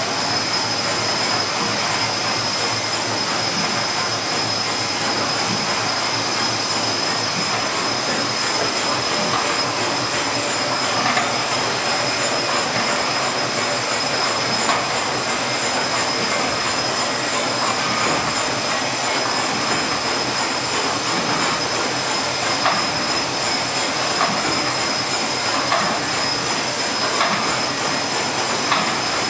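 Steam engine of the steam tug Cervia, run on steam for the first time in 30 years. It gives a steady hiss of steam with a thin, constant high-pitched whistle over it and a few faint light knocks.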